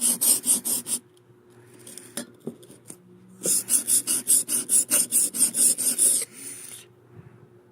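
Chisel blade rubbed back and forth on a block with 120-grit sandpaper: quick, even rasping strokes, about five a second. The first run stops about a second in, and after a pause of two to three seconds with a few light knocks, a second run goes on until about six seconds in.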